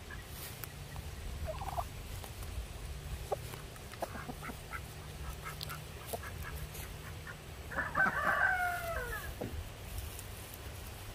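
Chickens clucking in the brush with short, scattered calls, then a louder, longer call about eight seconds in that falls in pitch.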